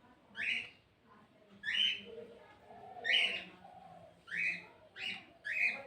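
A bird calling outdoors: six short calls, about one a second and coming closer together near the end.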